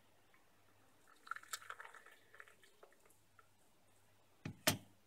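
Coffee poured from a glass vacuum-brewer carafe into a ceramic cup, a short trickling splash lasting about a second and a half. Near the end come two hard knocks close together, the loudest sounds.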